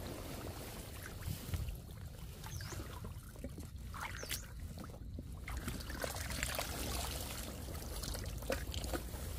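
Shallow water trickling and sloshing, with small splashes and knocks.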